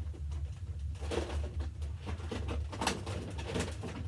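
A plastic toy gun is handled, making scattered clicks and rattles, with a sharper click about three seconds in, over a steady low hum.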